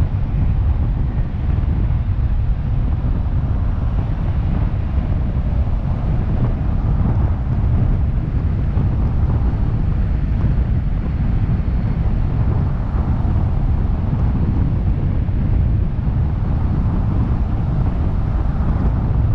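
Steady low rumble of wind buffeting a microphone mounted on the outside of a moving car, mixed with tyre and road noise inside a road tunnel.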